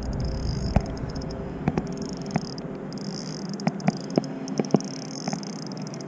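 Spinning reel being cranked to wind in a hooked fish: a faint steady whir with scattered, irregular light clicks and knocks.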